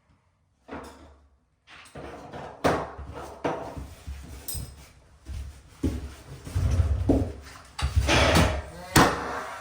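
Irregular knocks and thuds of hands-on work fitting MDF skirting board, about half a dozen sharp impacts with duller bumps between them, the loudest near the end.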